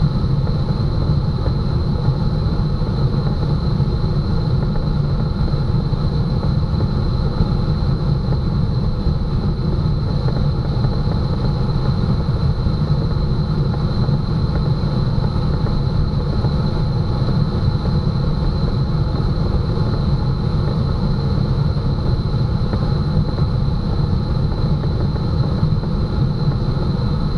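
Steady rush of air over a Schleicher ASW 15 glider's canopy and fuselage at about 85 knots on aerotow, heard inside the cockpit, with a thin steady high whistle running through it.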